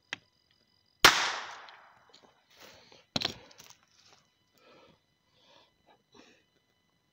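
A homemade .22 LR firing hammer struck down so that the .22 rimfire cartridge goes off about a second in: one sharp, loud bang with a short ringing tail. About two seconds later comes a second, quieter sharp knock, then faint handling noises.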